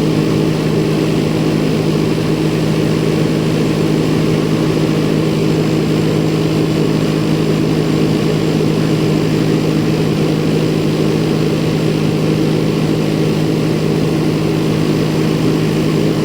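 Lincoln Vantage 500 welder generator's Perkins turbo-diesel engine running at a steady speed, with an even, unchanging hum.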